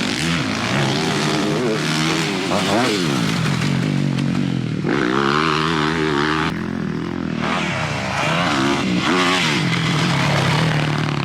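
Motocross bike engine revving around a track, its pitch climbing and dropping again and again as the throttle opens and closes through the turns and gear changes.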